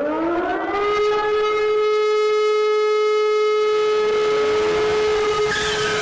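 Civil defense siren winding up in pitch over the first second, then holding one steady, loud tone. Near the end a second, noisier sound with a falling pitch cuts in over it.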